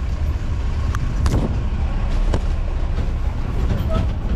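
Off-road jeep driving over a rough track: a steady low engine and road rumble with a few sharp knocks and rattles as it jolts over bumps.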